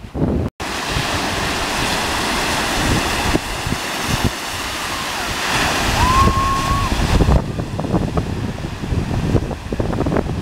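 Ocean surf breaking and washing up the shallows, with wind buffeting the microphone. A brief high held tone sounds about six seconds in.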